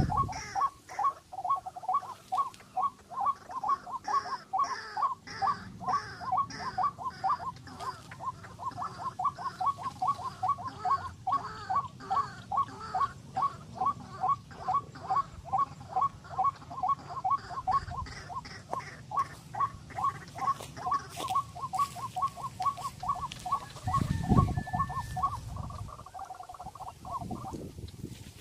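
A bird calling a fast, even series of sharp notes, about three a second, which stops shortly before the end. A low thump comes about 24 seconds in.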